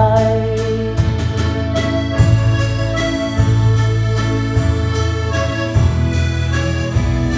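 Live band music with no singing: a button accordion plays the melody over strummed acoustic guitar, bass and drums in a steady beat.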